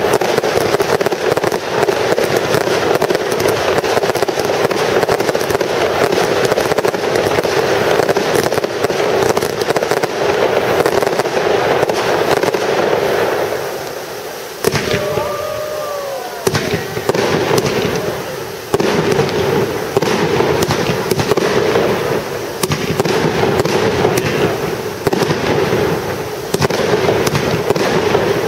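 Fireworks display: dense, continuous crackling and banging of aerial shells. It thins out for a second or two about halfway through, then comes back with a few sharp bangs and dense crackle again.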